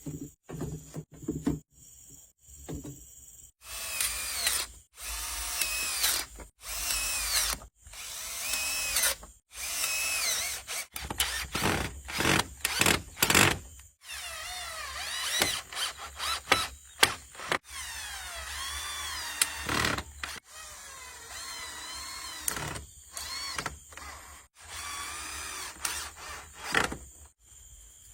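A small electric power tool's motor whirring in short stop-start runs, its pitch rising and falling as the load changes.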